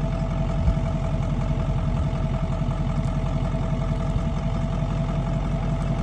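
An engine running steadily at idle, an even low hum with a steady tone above it that does not rise or fall.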